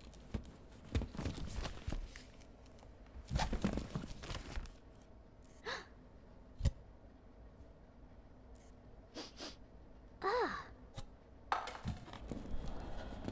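A person sighing and breathing out in several breathy bursts, with a few sharp knocks, and a short falling vocal sound like a groan or sigh about ten seconds in.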